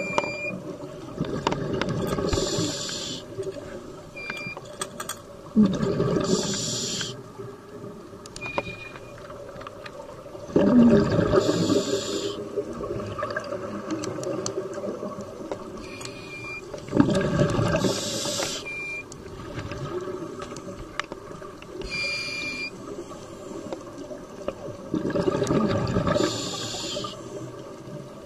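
Scuba regulator breathing heard underwater: exhaled bubbles rush out in six bursts of about a second each, every four to six seconds, over a low burbling of water. A few brief high tones sound between the breaths.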